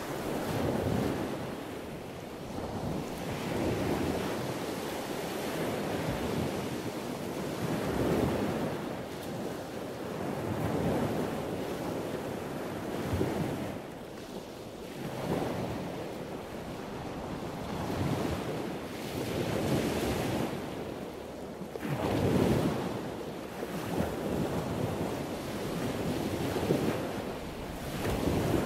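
Ocean surf: waves washing in and drawing back, the rushing noise swelling and fading every few seconds.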